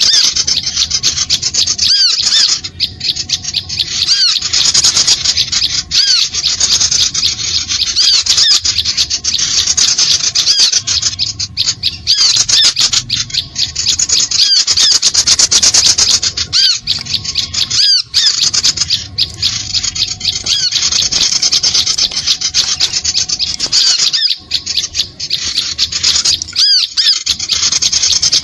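Small songbirds' rapid, high-pitched chirping and twittering, dense and unbroken: a bird-lure (pikat) recording played to draw small birds in.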